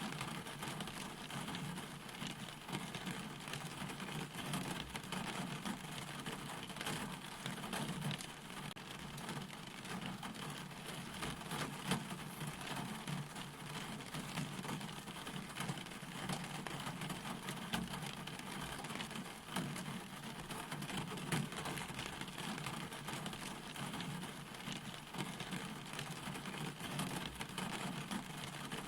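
Steady rain falling, an even hiss of drops with faint patter throughout.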